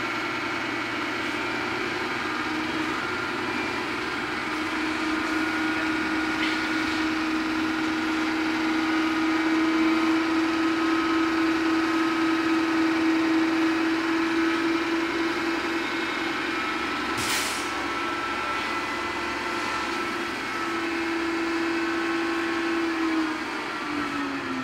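Tipper truck's engine running steadily under load, driving the hydraulic ram that raises the dump trailer's body, with a steady hum that holds one pitch. A short hiss about two-thirds of the way through.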